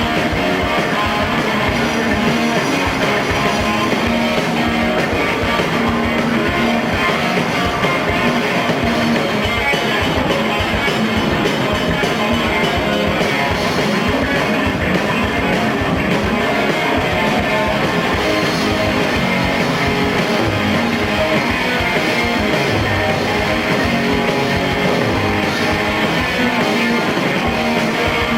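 A live rock band playing an instrumental passage with loud electric guitars, bass and drums, recorded in a small bar.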